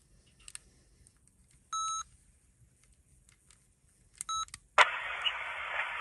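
Sony handheld digital voice recorder: a few faint button clicks, a short beep about two seconds in and another just past four seconds, then its small speaker starts playing back the recording as a steady hiss.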